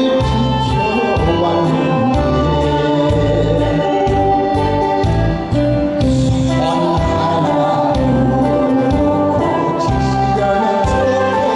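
A male singer singing a Korean song into a handheld microphone over backing music with a steady beat.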